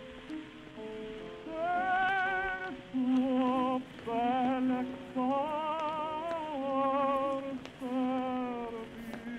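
Opera aria: a singer with wide vibrato sings held phrases over low, sustained accompaniment, the voice coming in about a second and a half in.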